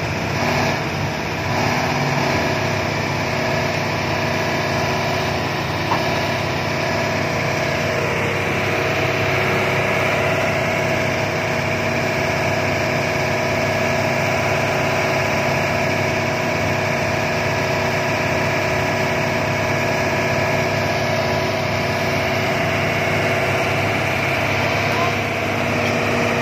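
Diesel engine of a Hitachi 200-class hydraulic excavator running steadily while the machine crawls up onto a truck bed.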